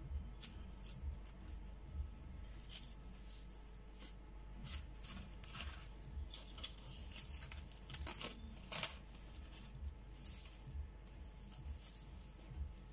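Plastic cling wrap crinkling and rustling in irregular bursts as hands fold and press it around a sandwich on a wooden board.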